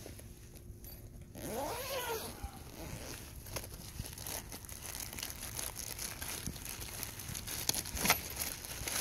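Tripod packaging rustling and crinkling as it is unpacked, with scattered sharp clicks and knocks, the loudest near the end. About a second and a half in, a single cat meow rises and falls.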